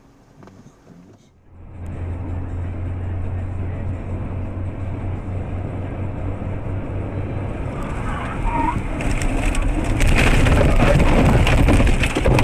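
Car's engine and tyre noise heard from inside the cabin at highway speed, a steady low rumble. About eight seconds in, a growing rush of crackling and scraping takes over, loudest near the end, as the car runs off the road and crashes through roadside bushes and branches.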